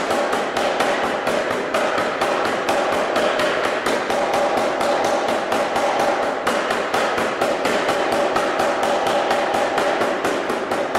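Anyang 25 kg (C41-25) self-contained pneumatic forging hammer running in continuous series blow, its ram striking hot steel in a steady rapid rhythm of about four blows a second.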